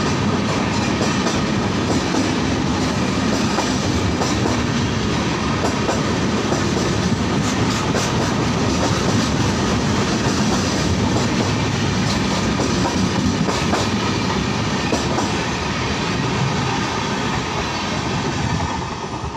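Howrah–New Delhi Rajdhani Express coaches passing close by at full speed: a loud, steady rush of wheels on rail with rapid clacks over the rail joints, easing slightly near the end as the last coaches go by.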